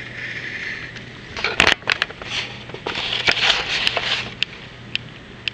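Pencil scratching across sheet aluminium while tracing outlines, then a few loud clicks and a stretch of scraping and clatter with scattered ticks near the end.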